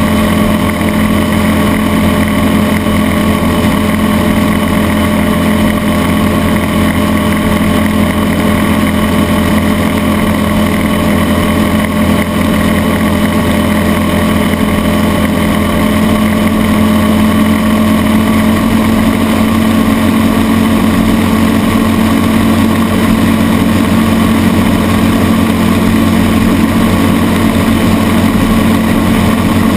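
Mercury OptiMax 300XS, a two-stroke V6 outboard, running steadily at high speed under load, heard close up with the hiss of water spray.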